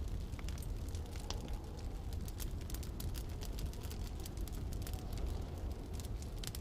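Wood fire crackling, with many small sharp pops, over a steady low rumble of wind.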